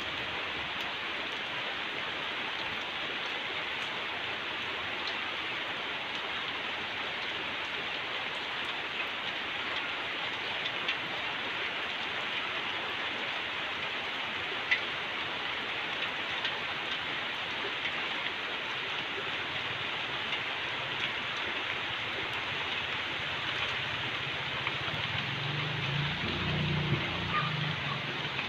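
Steady rain, not heavy, falling on garden foliage and a tiled courtyard, with scattered ticks of individual drops. A low rumble swells for a few seconds near the end.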